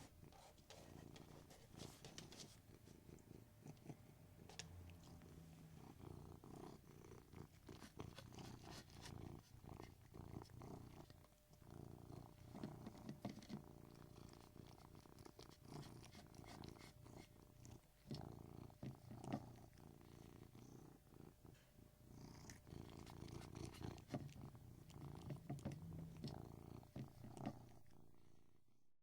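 A domestic cat purring faintly and continuously, a low pulsing rumble that stops abruptly near the end.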